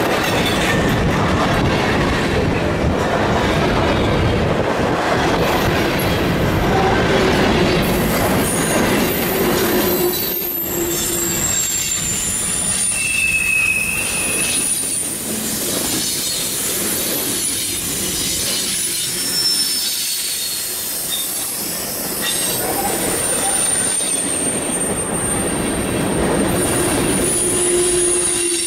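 Freight cars of a CN freight train rolling past on a sharp curve, their wheel flanges squealing in several high, steady tones that come and go over the constant rumble and clatter of the wheels on the rails. The rumble eases a little about ten seconds in.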